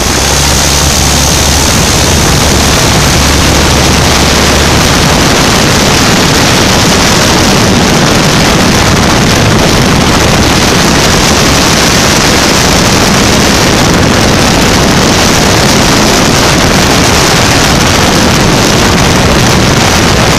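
Zlin Savage ultralight's engine and propeller running steadily at takeoff power through the ground roll, lift-off and climb, buried in heavy wind rush on the microphone. A low steady drone is plain in the first few seconds, before the wind noise swamps it.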